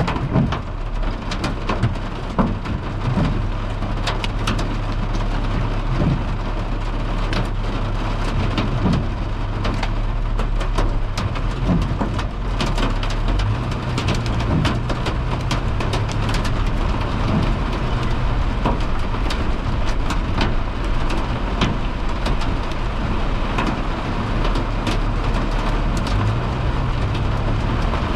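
Hail and heavy rain hitting the car's roof and windshield, heard from inside the cabin as a loud, steady patter with many sharp individual hits. A steady low hum runs underneath.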